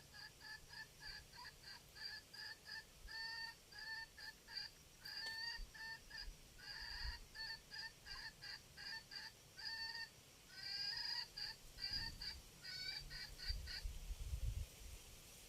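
Fowl giving a long, rapid series of short clucking calls, about three to four a second, that stops shortly before the end.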